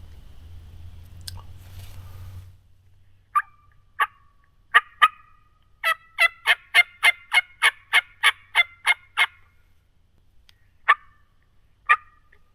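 Wild turkey hen yelping: a few single yelps, then a long, even run of about a dozen yelps at roughly three a second, then two more single yelps.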